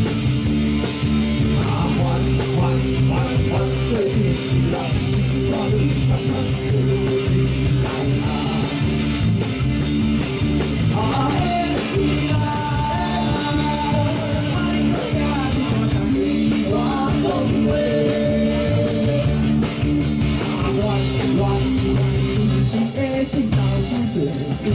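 Rock band playing live through a PA: drum kit and electric guitars at a steady, loud level, with a few long held notes around the middle.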